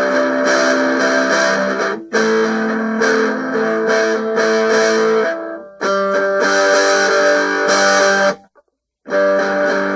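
Guitar played in sustained ringing chords, changing chord with brief breaks about two seconds in and near the middle, then stopping for about half a second near the end before playing on.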